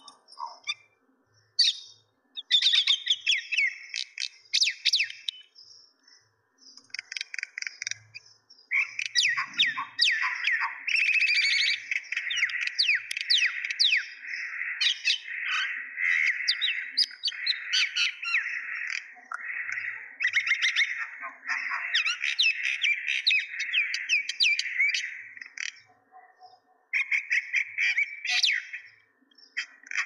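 Several caged common mynas chattering and calling, with rapid clicks and short sliding whistles. The calling comes in scattered bursts at first and becomes an almost unbroken chatter from about nine seconds in, with brief pauses.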